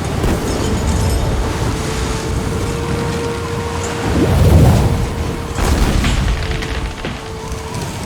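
Film sound effects of an avalanche: a deep, continuous rumble with booms, swelling loudest about four and a half seconds in, under music holding a long steady note.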